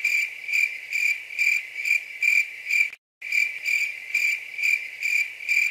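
Crickets chirping, an edited-in sound effect: a high chirp repeating about twice a second, cut off briefly about three seconds in. It serves as the comic 'awkward silence' cue.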